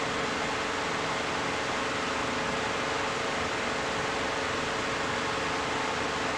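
Steady, even background hiss with a faint low hum. No separate sounds of the sponge dabbing stand out.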